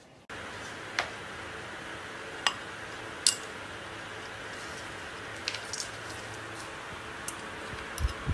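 A few sharp clinks of a spoon and a small bowl against a stainless steel mixing bowl as sliced bananas and chopped peanuts are mixed, over a steady low hiss.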